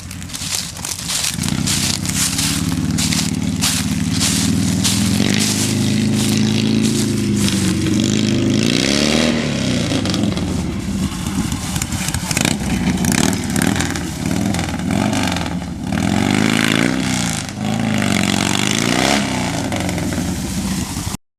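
Harley-Davidson V-twin engine with straight pipes and no mufflers. It runs steadily at first, then is revved up and let fall back repeatedly from about eight seconds in, and it cuts off suddenly near the end.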